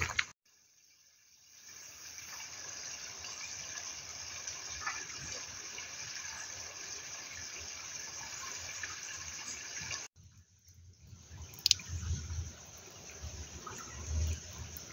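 Steady hiss of running water. After a break about ten seconds in, a thin stream of water runs from a spout into a small stone basin, with one sharp click and a few low bumps.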